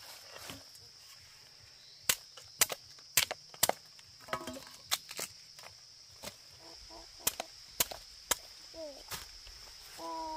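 A string of about a dozen sharp knocks at irregular intervals, starting about two seconds in, with brief voice sounds between them.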